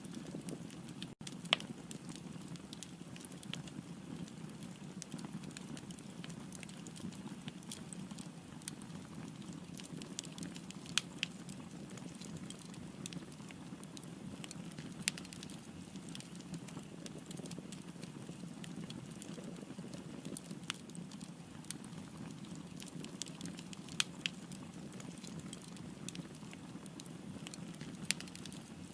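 Wood fire crackling: a steady low rush of burning with irregular sharp pops and snaps from the logs.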